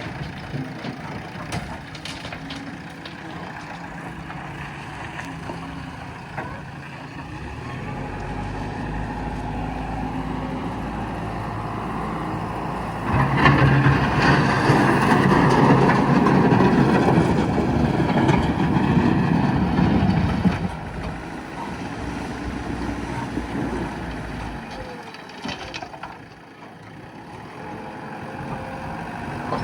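Diesel engine of a JCB backhoe loader running. It works harder and gets much louder for about seven seconds in the middle, then drops back.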